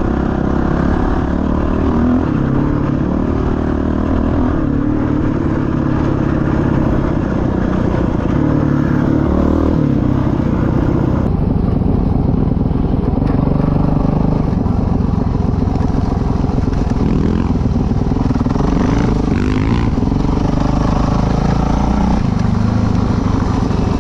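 Dirt bike engine running while riding, its note rising and falling with the throttle, with an abrupt change in tone about halfway through.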